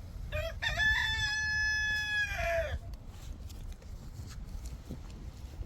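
A rooster crowing once: one long call of about two seconds that rises at the start, holds level, then drops away at the end.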